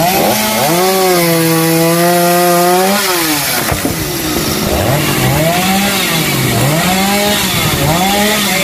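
Two-stroke chainsaw held at high revs for about two seconds, then dropping back. It is then revved up and down over and over, a rising and falling whine about once a second.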